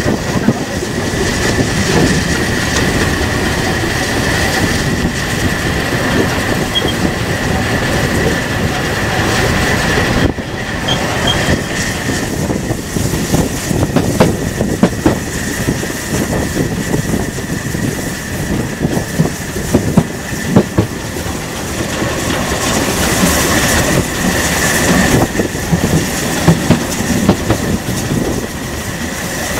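Saxon IV K narrow-gauge steam locomotive and its train running along the track, the wheels clattering over the rail joints in sharp clicks that come thicker in the second half. A steady high-pitched whine runs over the clatter.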